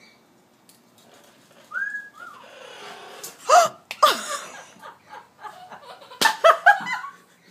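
Talking pet bird imitating a human laugh. A short whistled note comes first, then two loud falling calls, then a quick run of short laugh-like notes near the end.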